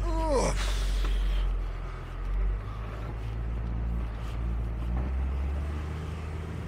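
A VW T3 Syncro van's engine running steadily in a low gear, heard from inside the cab. Its note shifts about five seconds in.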